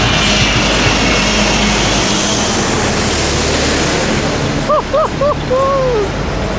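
Four-engined jet airliner passing close on its approach, its engines making a loud, steady noise. A few short pitched calls sound briefly about five seconds in.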